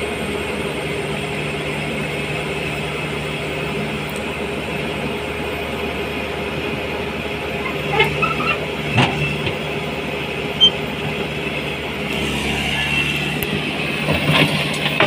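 JCB tracked excavator's diesel engine running steadily under working load, with a few sharp knocks and clunks from the bucket and boom about eight to nine seconds in, one more a little later, and again near the end as the machine swings back to dig.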